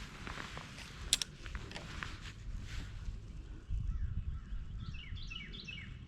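A bird calling in a run of short, quick chirps in the second half, over a low steady rumble of wind, with a few light clicks in the first half.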